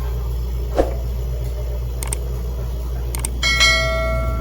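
A steady low machine hum, with a few light clicks and a short metallic ring of several pitches about three and a half seconds in.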